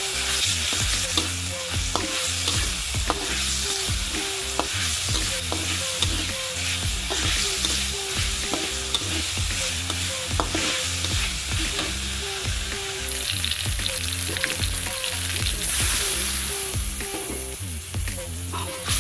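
Chicken, onion and carrot strips sizzling in a hot metal wok while a metal spatula stirs and scrapes them, with frequent sharp scraping ticks. The sizzle grows louder about three-quarters of the way through.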